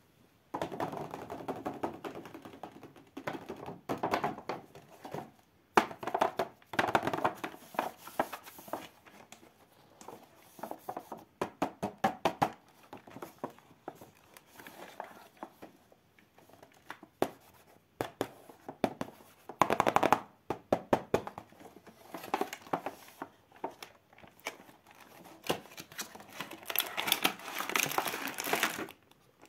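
Hands handling toy-car packaging: a clear plastic blister tray crinkling and a cardboard box rustling as the tray is slid out, with scattered sharp clicks and taps.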